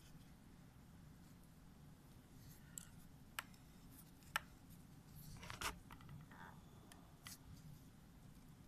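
Quiet room with a few sharp clicks and a brief scraping rustle from gloved hands handling dissecting instruments, the clicks spread over the middle of the stretch with the two loudest about a second apart.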